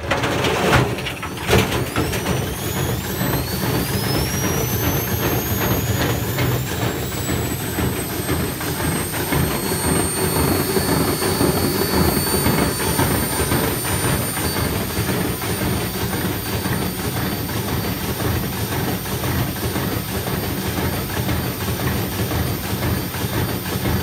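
Washing machine motor belt-driving a tumble dryer drum, starting up with two knocks. Its whine rises in pitch over the first several seconds as it gets up to speed, then holds steady over a constant clatter from the spinning drum. Even with a small load in the drum this puts a lot of resistance on the dryer's bearings, which the owner says they can't take.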